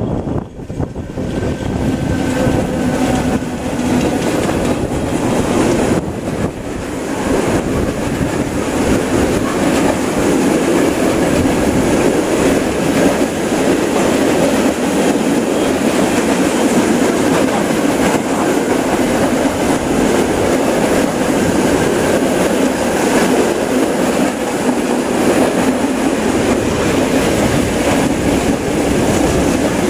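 ET22 electric locomotive passing close by, then a long mixed freight train of flat and open wagons rolling past, its wheels on the rails making a steady, loud rolling noise that builds in the first couple of seconds and then holds.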